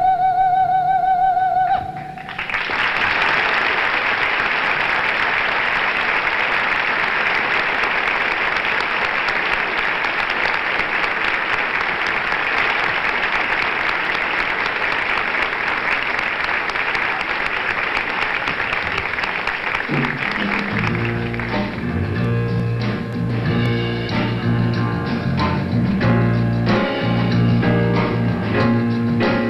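An operatic singer holds a final high note with vibrato, cut off about two seconds in by audience applause that runs for about eighteen seconds. The band then starts playing again.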